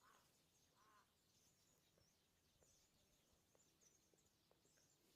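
Near silence, with faint bird chirping throughout and two short arched calls in the first second.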